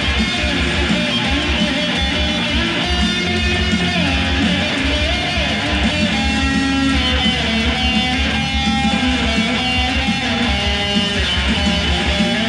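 Electric guitar played through an amplifier, a melodic line of held and gliding notes over a steady, regular low pulse.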